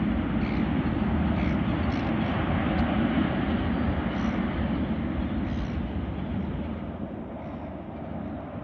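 Distant jet airliner engines rumbling steadily, fading somewhat near the end.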